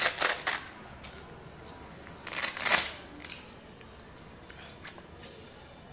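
Fabric abacus bag and case being handled and opened: a short rasping, rustling burst at the start and a louder one about two and a half seconds in, then faint small handling clicks.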